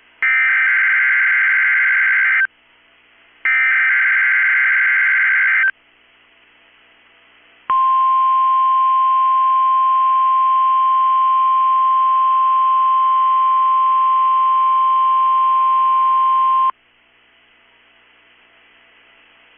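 NOAA Weather Radio Emergency Alert System signalling for a Required Weekly Test: two bursts of warbling SAME digital header data, about two seconds each and a second apart, then the steady 1050 Hz warning alarm tone held for about nine seconds, which cuts off sharply to faint radio hiss.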